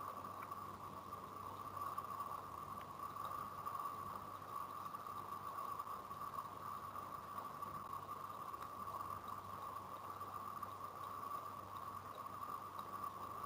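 Steady background hiss with a faint low hum and no distinct events: room tone and microphone noise.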